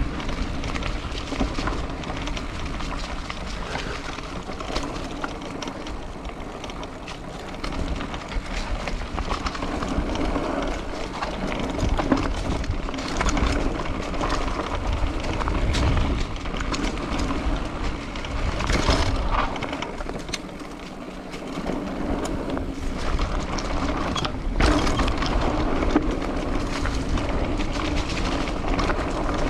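Riding noise heard on a bicycle-mounted microphone: wind rushing over the mic and tyre and road noise under a steady hum. It eases off briefly around the middle.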